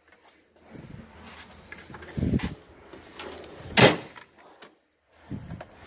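Rummaging and handling of tools and objects, with a dull knock about two seconds in and a sharper, louder clack near four seconds.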